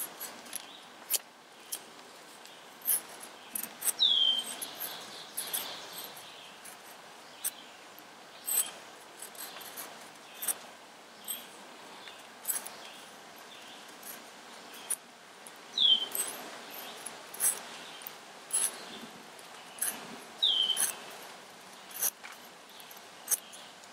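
Thomas Hacker Forge neck knife shaving curls down a wooden stick to make a feather stick: a run of short, sharp scraping strokes at uneven intervals. A short, high, falling squeak is heard three times.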